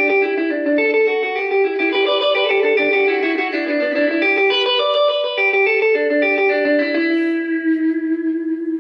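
Electric guitar picked in a quick run of single notes through an Electra EP-401 digital delay, the notes overlapping with their delayed repeats. Near the end one note is held and rings out.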